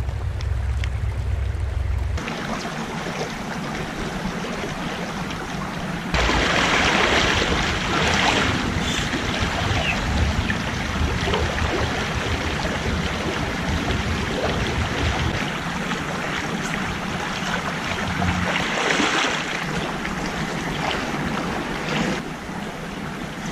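Shallow creek water running over stones, a steady rushing hiss. The sound changes abruptly at a couple of cuts, and a low rumble sits under the first two seconds.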